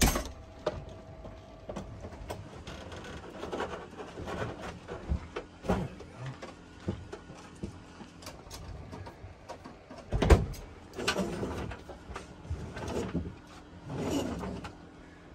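Knocks, clunks and scraping as a heavy lithium battery enclosure, about 280 pounds, is manoeuvred into place. There is a loud thump about ten seconds in.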